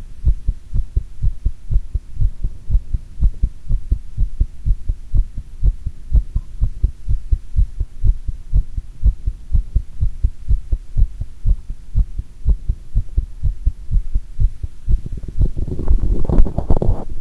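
Human heartbeat heard through a device pressed against the chest after squats: a steady run of low lub-dub thumps. Near the end a louder rustling noise rises over the beats.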